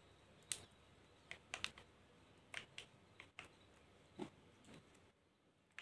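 Near silence: quiet room tone with about ten faint, irregular clicks and taps.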